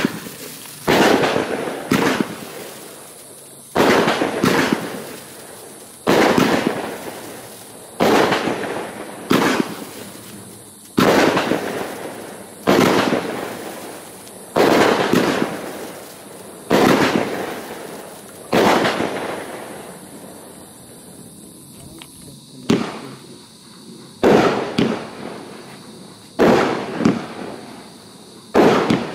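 Funke Mephisto 10-shot fireworks battery firing: a string of sharp bangs, roughly one every one to two seconds, as its strobing tails go up and burst into titanium-gold willow with red stars. Each bang fades out over about a second, and the shots pause for a few seconds about two-thirds of the way through.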